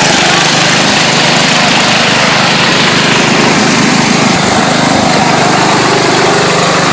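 Massey riding lawn mower's engine running loud and steady under load as the mower is driven over muddy ground.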